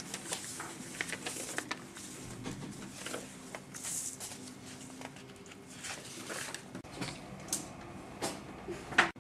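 Sheets of paper being handled, passed out and laid on a table, with soft rustling and small knocks of hands and pens. A sharper knock near the end.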